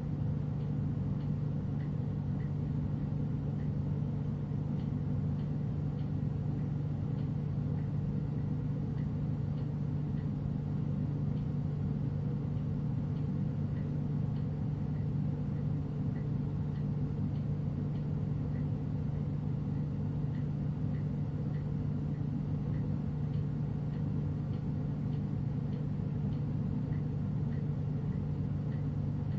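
Lampworking bench torch burning steadily, a constant low hum and rumble with faint scattered ticks above it.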